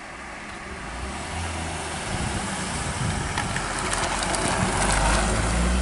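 A BMW E30 3 Series car approaching and passing through a tight bend, its engine growing steadily louder as it nears.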